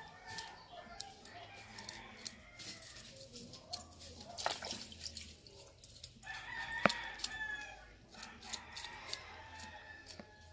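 A knife blade scraping scales off small sprat fish, a quick run of short scratchy clicks. A rooster crows a little past the middle, the loudest sound here.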